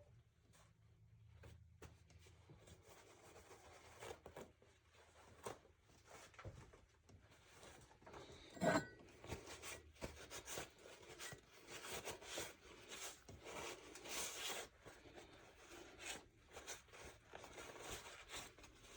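Quiet workbench handling: faint rustling and light scraping, with small knocks scattered throughout and one sharp knock about nine seconds in.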